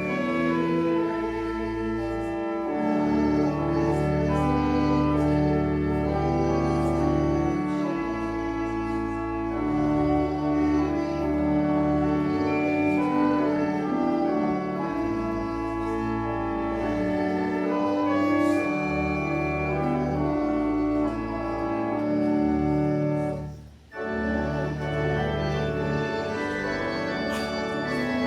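Church organ playing held chords over a sustained bass line, with a short break in the playing near the end.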